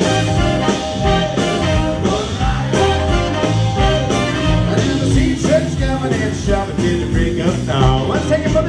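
Live jump blues band playing an instrumental passage: trumpet, trombone and saxophone over keyboard, electric bass, guitars and a steady drum beat.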